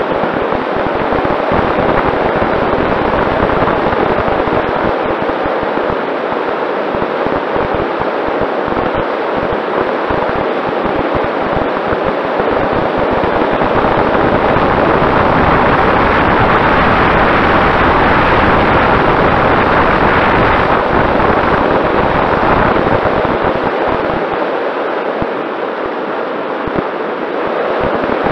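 Wind rushing and buffeting over the onboard camera microphone of a Mini Talon RC plane in flight, loud and gusty, with a faint steady whine from its Sunnysky 2212 brushless motor underneath.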